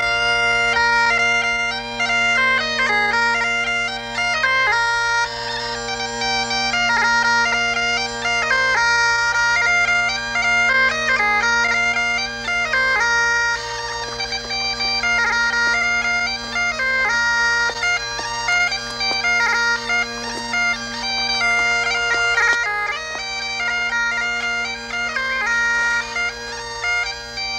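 Scottish Highland bagpipes playing a tune, the chanter's melody moving over the steady, unbroken drones.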